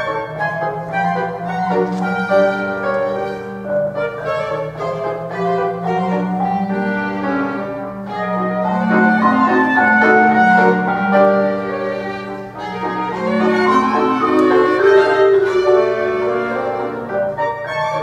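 Small live chamber ensemble playing: a violin carries the melody over piano, with a sustained low line beneath. The music swells louder about halfway through and again near the end.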